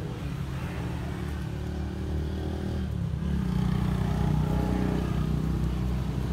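A motor engine running with a low, steady hum, getting louder about three seconds in.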